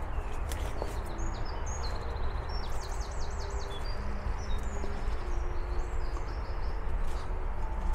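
Small songbirds chirping and twittering in short high notes, with a quick run of about five slurred notes near the middle, over a steady low rumble. A few sharp clicks come near the start and the end.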